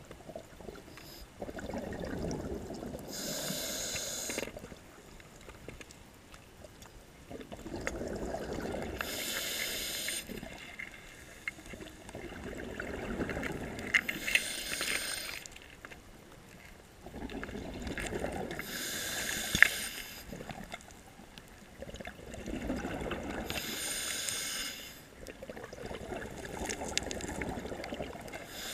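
Scuba diver breathing through a regulator underwater: a rumble of exhaled bubbles alternating with the regulator's high hiss, about one breath every five seconds, with a couple of faint clicks.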